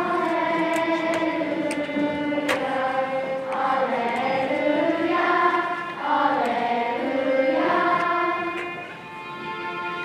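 Mixed school choir singing a slow choral piece in long, sustained chords that swell and ease off, dropping softer about nine seconds in.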